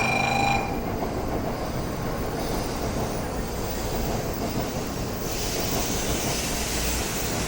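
Shinkansen train running along the station platform: a steady rumble of wheels and running gear, with a higher hiss growing stronger about five seconds in.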